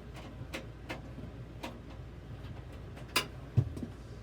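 Scattered light clicks and taps from hands working on a Dell OptiPlex 3020 desktop, with a sharper click a little over three seconds in and a low thump just after it.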